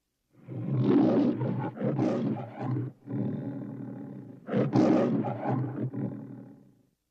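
The MGM studio logo's lion roaring several times, with a brief break about three seconds in and the loudest roar a second and a half later, dying away near the end.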